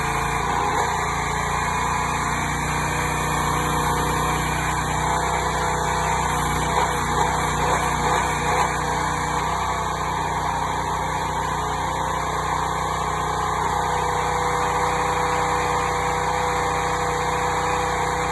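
Small 301cc single-cylinder Predator gasoline engine of a towable backhoe running steadily, driving the hydraulic pump, with a few brief louder moments about seven to nine seconds in.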